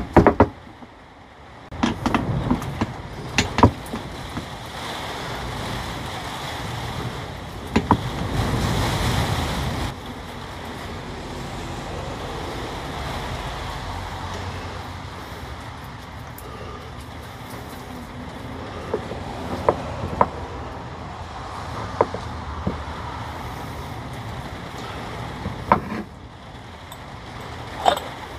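Greased metal parts of a DeWalt DCF899 impact wrench's drive mechanism clicking and knocking now and then as they are handled and fitted together, over a steady low rumble that swells for a couple of seconds near a third of the way in.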